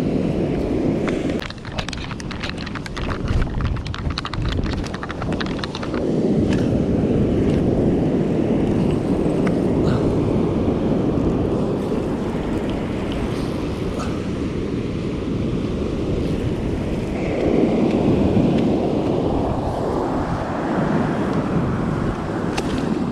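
Wind buffeting the microphone over the wash of surf. For a few seconds near the start, a fast run of sharp clicks from a fishing reel as the rod is handled after a bite.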